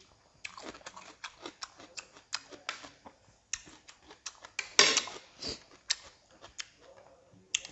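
Close-up eating sounds of two people chewing boiled pork and rice: irregular wet chewing and lip-smacking clicks. A louder clatter a little before the five-second mark fits metal serving tongs on the dish.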